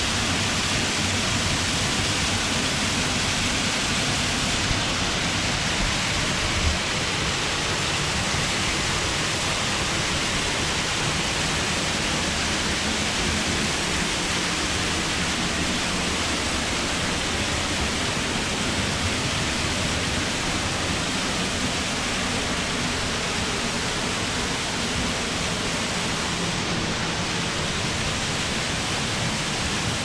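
Steady rush of a small waterfall heard up close from behind and beside the falling water, as it pours onto rock and into a shallow pool; an even, unbroken wash of water noise.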